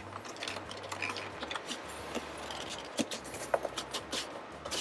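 Cardboard packaging handled by hand: a printed card sleeve slid off a cardboard box, giving light scraping and rustling with scattered soft clicks and taps.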